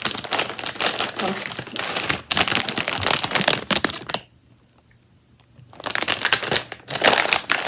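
Crinkly plastic snack bag being crumpled and handled. It rustles for about four seconds, stops briefly, then starts again near the end.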